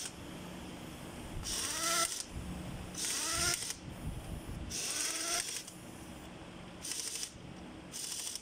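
Pneumatic air ratchet run in five short bursts, each a hissing spin-up with a rising whine, as it runs down the connecting rod cap bolts of a Cummins QST30 diesel engine.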